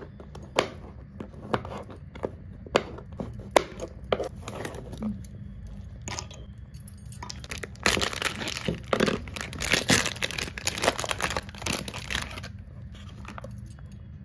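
A knife chopping on a plastic-covered table, with sharp separate taps for the first six seconds. Then a plastic food packet is torn open and crinkled for about five seconds.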